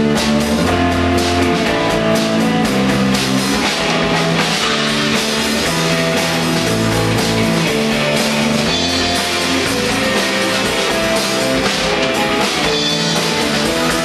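A live rock band playing a song: electric guitar, bass and drum kit together, with chords changing about once a second over a steady drum beat.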